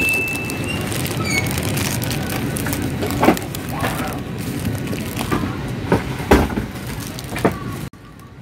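Airliner cabin ambience during boarding: a steady rush and hum of cabin air. Near the start comes a brief high tone, then a second, shorter one. After that, a handful of knocks and bumps come as the phone is carried down the aisle.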